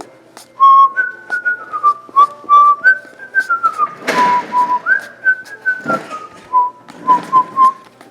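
A person whistling a tune, a melody of held notes stepping up and down, with a short rustle about four seconds in and fainter ones later.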